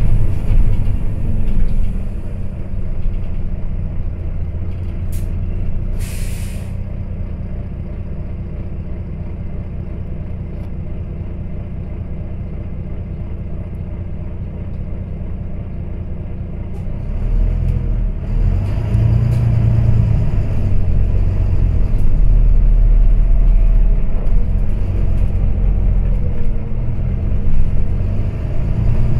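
Diesel city bus engine idling while stopped, with a short air hiss about six seconds in. From about two-thirds of the way through it pulls away, the engine note rising and falling as it works up through the gears.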